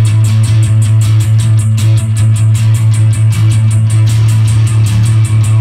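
Live punk / cold wave band playing an instrumental stretch: an electric guitar strummed over a steady low droning note, driven by a fast, even beat of about five strokes a second. It is loud throughout.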